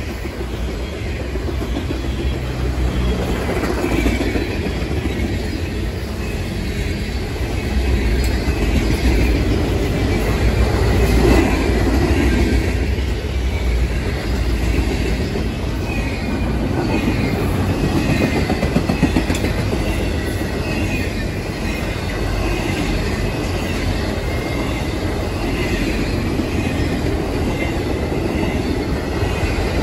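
Freight cars of an intermodal train, refrigerated boxcars and double-stack container well cars, passing close at speed: a steady, loud rumble and rattle of steel wheels on the rails, with a faint high squeal at times in the second half.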